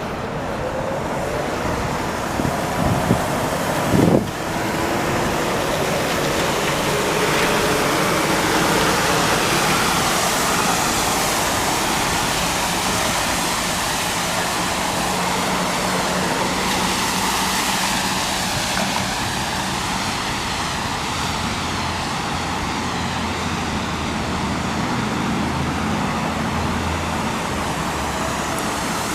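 A car driving: steady engine and road noise, with the engine note rising in the first few seconds and two short knocks about three and four seconds in.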